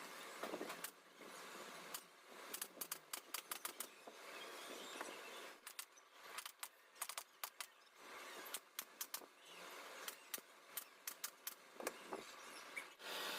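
Irregular sharp clicks and taps of hand tools being worked, some in quick runs of several clicks, over a faint hiss.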